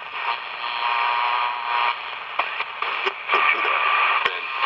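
Candle 10-transistor pocket radio playing through its small speaker: a weak station under steady hiss and static, with a faint broadcast coming through underneath.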